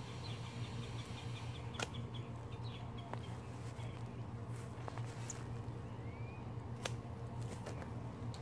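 Long-handled loppers snipping through moringa stems: two sharp snaps, about two seconds and seven seconds in, with a few lighter clicks between. Under them runs a steady low hum, and small birds chirp.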